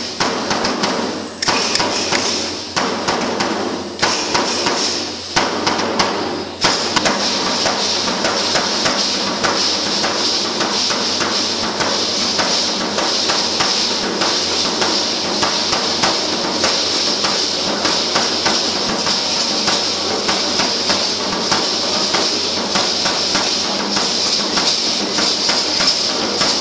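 Matachines dance percussion: hand rattles shaking and dancers' stamping steps make a dense, rhythmic clatter. In the first seven seconds it swells and drops about once every second and a quarter, then runs on evenly.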